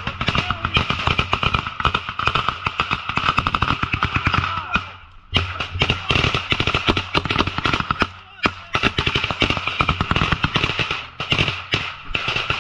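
Sustained automatic gunfire: rapid shots in long strings, with a brief lull about five seconds in.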